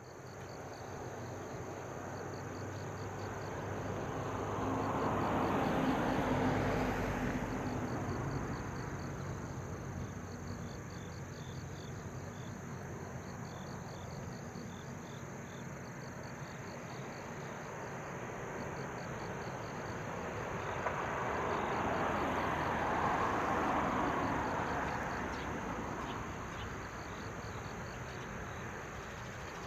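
Insects chirping in steady, evenly pulsed high trills, crickets among them, over a rushing background that swells twice, a few seconds in and again about two-thirds of the way through.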